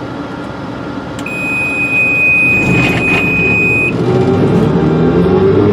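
John Deere forage harvester running under load, heard from inside the cab. About a second in, a steady high-pitched electronic warning beep sounds continuously for roughly two and a half seconds, then stops. The machine noise grows louder about two seconds in.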